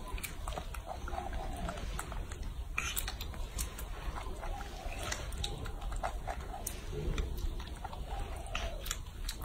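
Baby macaque biting and chewing a peeled orange: scattered short wet clicks and smacks of its mouth on the fruit, over a steady low hum.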